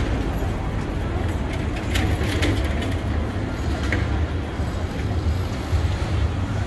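Busy city street ambience: a steady low rumble of traffic and crowd noise, with a few faint clicks.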